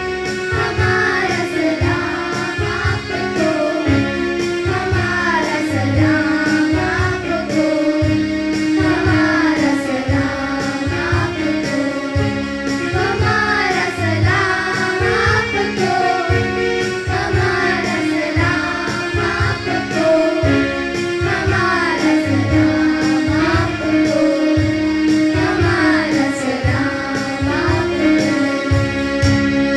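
Children singing a Hindi song over instrumental accompaniment with a steady beat.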